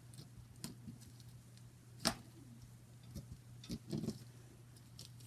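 Butter slime being squished and poked by hand, giving scattered small clicks and pops, the sharpest about two seconds in and a few more near the end, over a steady low electrical hum.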